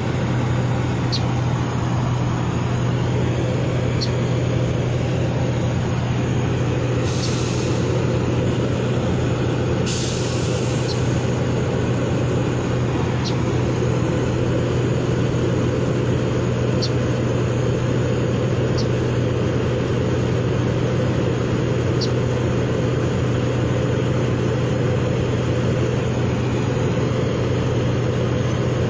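Steady low rumble of motor vehicles, with two short hisses about seven and ten seconds in.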